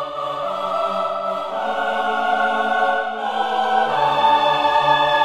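Background music of long held chords, changing about three to four seconds in.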